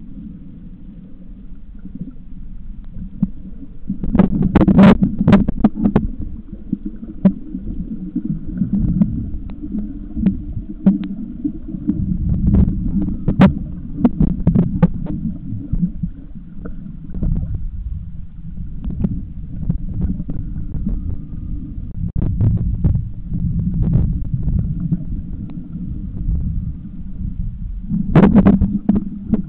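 Muffled underwater noise heard through a camera's underwater housing: a continuous low rumble of moving water with many sharp clicks and knocks, swelling into louder bursts about four seconds in and again near the end.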